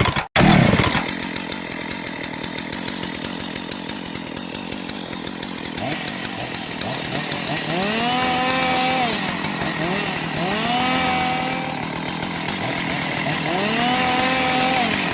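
Chainsaw engine bursting into life, then idling with a rapid even pulse. From about six seconds in it is revved up, held and let fall back three times.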